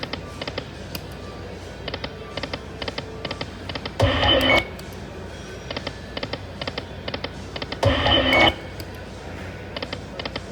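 Lightning Link Moon Race video slot machine spun again and again: runs of quick clicks as the reels land, and a short loud jingle about every four seconds, twice.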